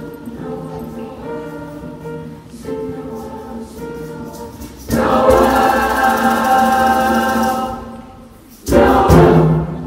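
Mixed youth choir singing, softer at first, then suddenly loud and full-voiced about halfway through. A brief drop follows near the end, then another loud chord.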